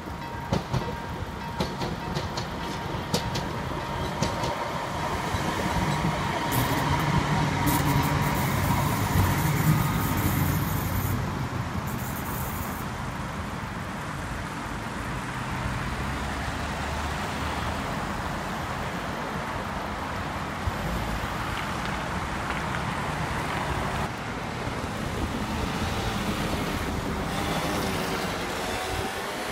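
Lidingö line tram passing over a road level crossing, loudest about a third of the way in, while the crossing's warning signal sounds a steady high tone. After the signal stops, road traffic runs past the raised barriers.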